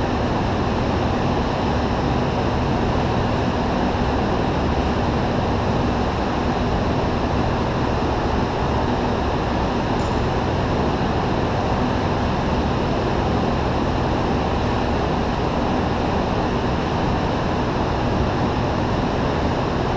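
Steady, even rumble and rush of a go-kart running on an indoor track, picked up by a camera mounted on the kart, with a faint low hum underneath.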